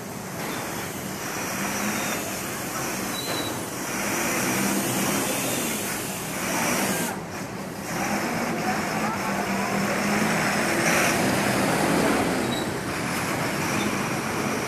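Heavy road traffic passing close by, buses and trucks with engines running and tyres rushing, swelling and fading as each goes by.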